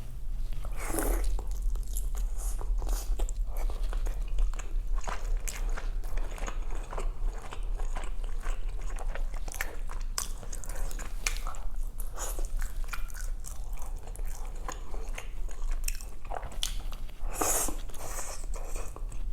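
Close-miked chewing and crunching of food, a steady run of small wet clicks and crackles with a few louder bites.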